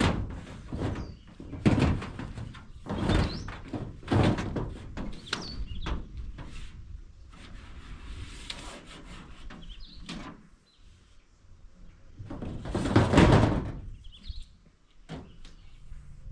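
A series of irregular knocks, thuds and scrapes. The longest and loudest comes about thirteen seconds in.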